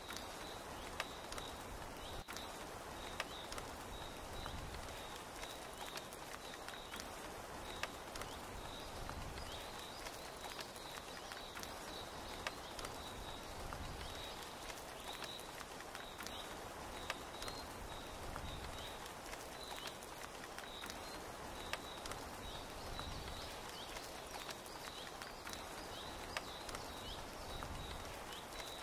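Steady rain with scattered sharp drip ticks, and a small animal's short high chirps repeating every half second or so throughout.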